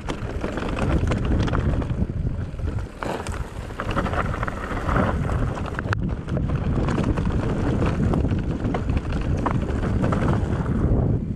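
Wind buffeting the microphone of a moving rider on a trail, a steady rush with scattered short clicks and knocks from the ride over rough ground.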